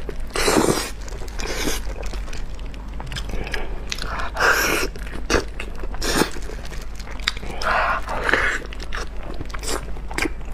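Close-miked eating of braised pig trotters: biting, chewing and wet mouth sounds, with a louder bite about every four seconds.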